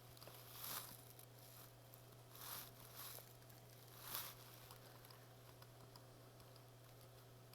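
Near silence: room tone with a steady low hum and four faint, brief soft rustles in the first half.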